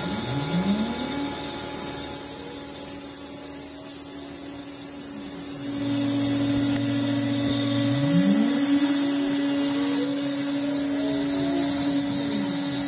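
Fine Line Automation 4x4 CNC router milling 1/2-inch polycarbonate: the spindle runs steadily at about 17,000 RPM under a constant hiss of air blast at the bit. Machine tones glide up and down in pitch several times as the cutter works along the curves.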